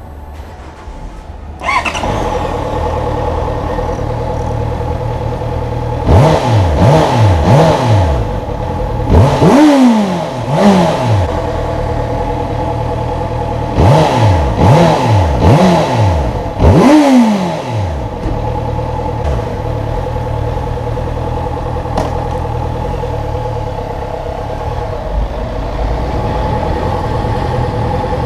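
Honda CB650F's 649 cc inline-four engine starting, catching abruptly, then idling. The throttle is blipped in quick revs several times, in two clusters: a few seconds after the start and again midway. It then settles back to a steady idle.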